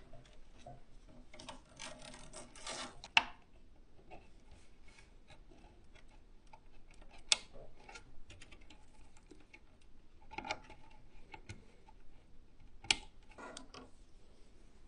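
Power supply cables being plugged in and routed inside a PC case: rustling of the cables with a few sharp plastic clicks, the loudest about three, seven and thirteen seconds in.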